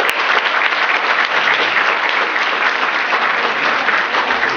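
Audience applauding: dense, steady clapping at the close of a stage dance number.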